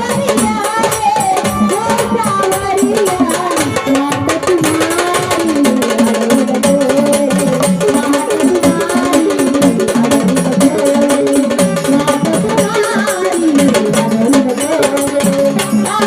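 Gondhal devotional folk music: a melodic singing voice over continuous drum and small hand-percussion accompaniment.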